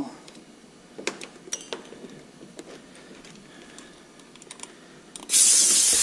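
A few light clicks of parts being handled, then about five seconds in a loud hiss of high-pressure air escaping for about a second at the HPA tank's regulator, because the airline was not yet plugged in.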